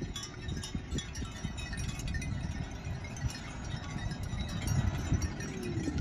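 Light tinkling of small bells, of the kind worn by a grazing cattle herd, scattered and irregular, over a low, uneven rumble.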